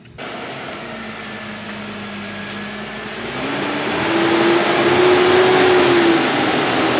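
BMW M54 straight-six engine idling steadily, then revved up about three seconds in, held for a couple of seconds and let fall back toward idle near the end.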